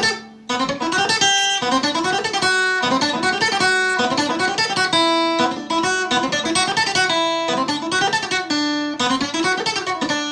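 Acoustic guitar playing a fast passage of single plucked notes, the same climbing-and-falling run repeated over and over with a short break about half a second in. The guitar has drifted out of tune.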